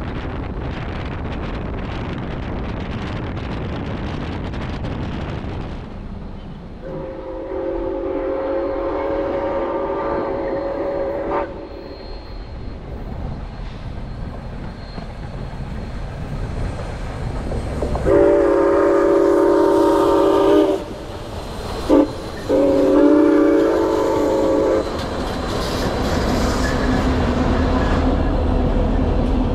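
CP 2816, a 1930 H1b 4-6-4 Hudson steam locomotive, sounding its chime whistle in the grade-crossing pattern: long, long, short, long. The first seconds are wind on the microphone, and near the end the passing train's rumble and wheel clatter build.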